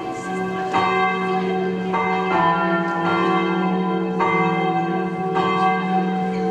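Bells ringing: a string of sustained bell strokes, a new one about every second, each ringing on under the next.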